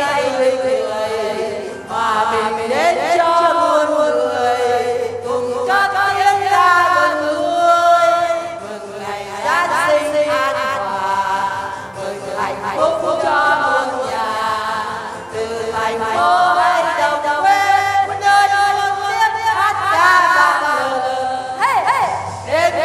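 Choir singing in several voice parts, with a steady low accompaniment underneath.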